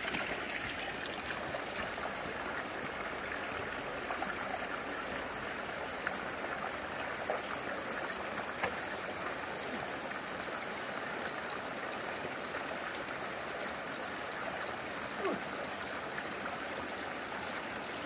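Shallow mountain stream running over rocks: a steady rush of water, with a few faint knocks now and then.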